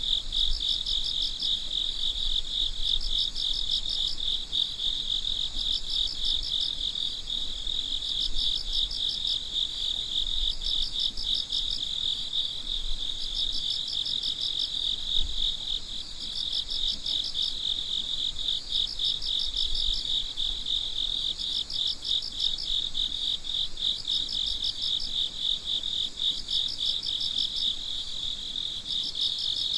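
Night chorus of crickets: a continuous high, rapidly pulsing trill, overlaid by a slightly higher chirp that comes in short pulse groups about every second or so.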